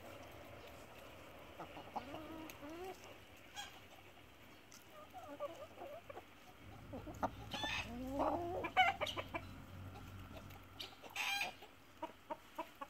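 A flock of chickens clucking as they forage, with short calls that rise and fall in scattered bursts, busiest a little past the middle.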